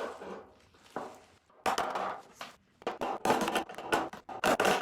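A hammer striking a sheet-metal car quarter panel to work out a dent: a few spaced blows at first, then quicker runs of taps in the second half.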